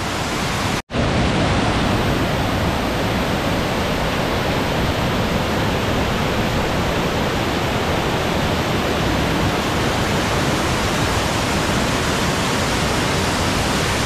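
Kilkila waterfall and its rapids in heavy flow: a steady, loud rush of falling water, with a momentary dropout about a second in.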